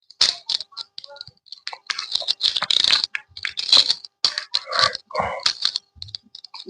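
Hand tools clicking and rattling in short, irregular bursts as they are picked up and handled, such as an oil-filter wrench attachment being fetched and fitted.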